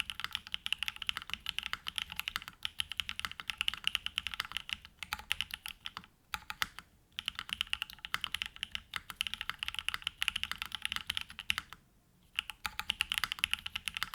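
Fast typing on a Mode Envoy mechanical keyboard with hand-lubed TTC Wild switches, a polycarbonate plate, mid foam and GMK Serika R2 keycaps: a dense run of keystrokes, broken by short pauses about five, six and twelve seconds in.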